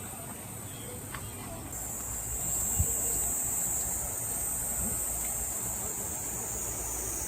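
Steady high-pitched chirring of summer insects, growing louder about two seconds in. A single low thump sounds near the middle.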